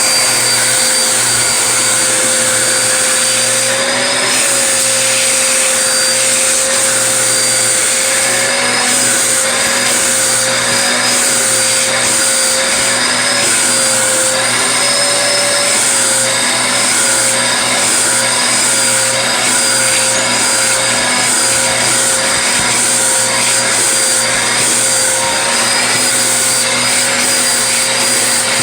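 Vacuum cleaner running steadily, its motor whine wavering slightly in pitch over a constant high hiss.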